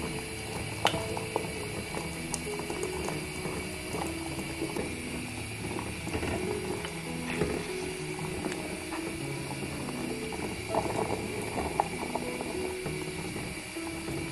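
Water at a rolling boil around whole potatoes in a stainless steel pot: a steady hiss with many irregular bubbling pops and clicks, under soft background music.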